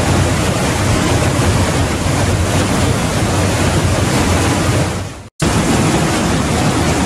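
Trümmelbach Falls, a waterfall plunging through a narrow rock chasm: a loud, steady rush of falling water. About five seconds in the sound fades and drops out for a split second, then comes straight back.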